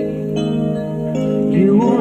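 Ballad backing track of held chords. A man sings along, his voice gliding up into a new phrase near the end.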